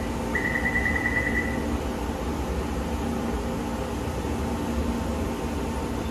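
Taipei Metro C341 train standing at an underground platform with its doors open, its equipment and the station ventilation giving a steady hum with a low rumble. A rapid, high-pitched electronic beeping sounds at the start and stops about a second and a half in.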